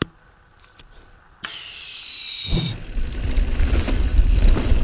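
A few faint clicks in quiet, then about a second and a half in a sudden hiss with high, slightly falling whining tones. From about two and a half seconds a rough low rumble of wind on the helmet-camera microphone and tyres on a dusty dirt trail builds as the mountain bike gets rolling downhill, growing louder.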